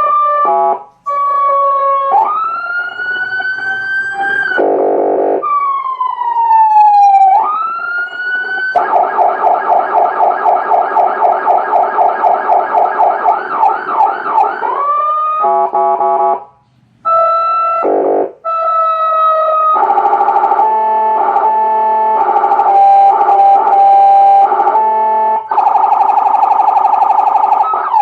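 AS820 200-watt electronic siren amplifier through its speaker, stepping through its siren tones: short blips, slow rising and falling wails, and a fast yelp warble of about three cycles a second from about nine seconds in. It then plays pulsed horn blasts and a stepped two-tone pattern, and goes back into a fast warble near the end.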